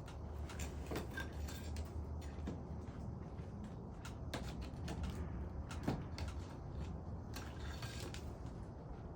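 Irregular scrapes, taps and clicks of roof shingles being pried up and nails being worked loose, over a steady low rumble.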